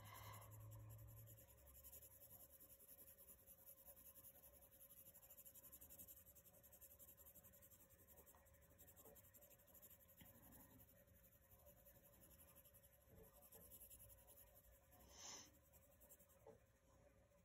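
Faint scratching of a wooden graphite pencil's chiseled edge shading on paper in small circular strokes. There is one brief louder noise near the end.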